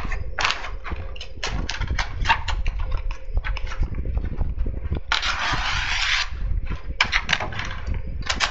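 Typar polypropylene house wrap crackling and rustling as it is handled and sliced with a utility knife around a doorway opening: a quick run of sharp crinkles, with a continuous hiss of about a second about five seconds in. A steady low rumble runs underneath.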